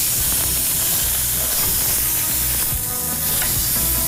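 Beef fillets sizzling steadily in a hot ridged grill pan.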